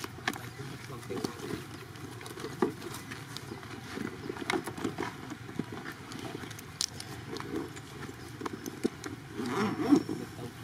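Long-tailed macaques shifting on dry ground, making scattered soft clicks and rustles, with a louder burst of rustling near the end.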